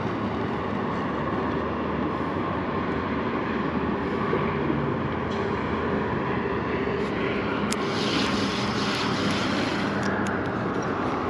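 Steady wind rushing over an action camera's microphone, with a brighter gust about eight seconds in and a few short clicks near the end.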